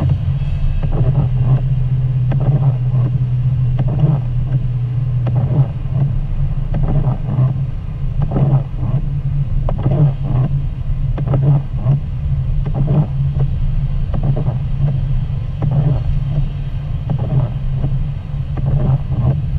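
Car driving on a wet highway, heard from inside the cabin: a steady engine and road drone with frequent, irregular short knocks and swishes over it.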